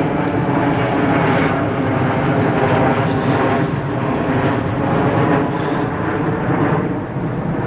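Airplane flying over, a loud steady engine drone.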